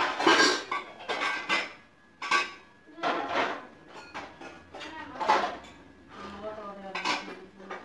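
Repeated clattering and clinking of hard objects being handled, in short bursts, with a faint voice in the background near the end.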